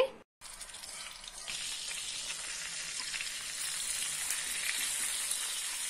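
Beef burger patties frying in hot oil on an iron tawa: a steady high sizzle that starts after a brief moment of silence and grows louder about a second and a half in.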